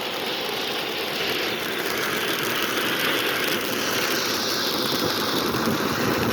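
A 'Shaken Not Stirred' consumer firework fountain spewing flame and sparks with a steady hissing rush that grows slightly louder, with no bangs or crackles.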